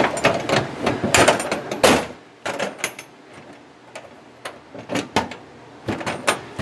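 The lid of a Better Built (Kobalt) aluminum diamond-plate crossover truck toolbox is shut, with a cluster of sharp metal clacks and knocks in the first two seconds. Scattered lighter clicks follow from the lid's latch being worked.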